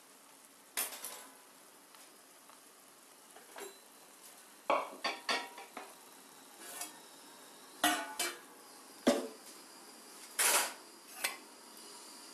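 Metal spatula scraping and knocking against a metal kadai as a masala gravy is stirred, in irregular strokes a second or so apart, over a faint sizzle from the simmering gravy.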